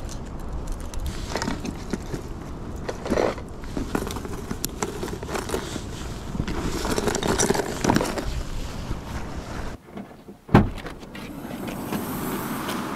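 Metal fishing gear being handled: a fish grip and stringer clips clink and scrape, over steady wind rumble on the microphone. About ten seconds in, the sound drops away, then comes a single loud knock, followed by a steady hiss.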